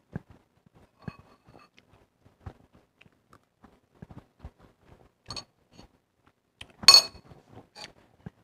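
Small chewing and mouth sounds while eating, with light taps of a metal spoon, and one loud ringing clink of the spoon against a stoneware bowl near the end.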